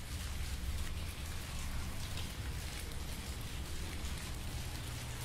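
Steady background hiss with a low hum underneath; no other event stands out.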